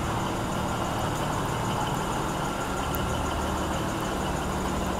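Diesel engines of a standing V/Line VLocity railcar idling, a steady low hum.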